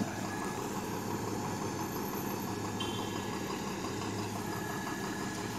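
A heavy vehicle's engine running steadily, a low even hum.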